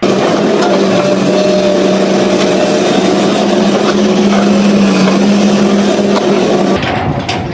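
A motor running steadily at an even pitch, loud and constant, then cutting off suddenly near the end.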